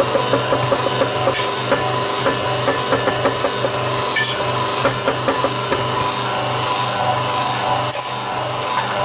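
Bosch stand mixer running steadily, beating cake batter, while a spatula scrapes and taps melted chocolate and butter out of a stainless steel bowl into it, with quick irregular ticks for the first few seconds. A couple of sharp metallic clinks, about four seconds in and again near the end.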